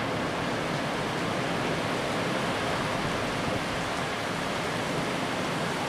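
Storm noise: a steady, even rush of wind and rain.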